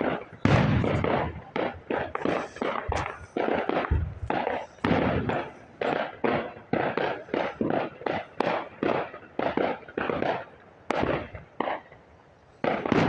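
A rapid, uneven series of loud sharp bangs, about three a second, each dying away quickly.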